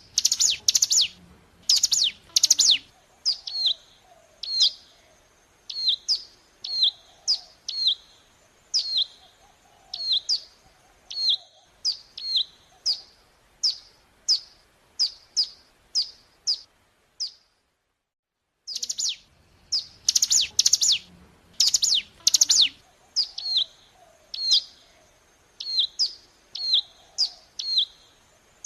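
Ciblek gunung, a mountain prinia, calling in a long run of short, sharp high chirps that fall in pitch, about one or two a second. The calls stop dead for about a second about two-thirds of the way in, then the same sequence starts over from the beginning, as a looped lure recording.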